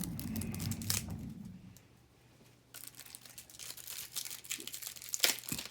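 A trading-card booster pack wrapper being torn open and crinkled in the hands. Crackling starts about three seconds in, with one sharp crackle near the end, after a low rumble that dies away in the first two seconds.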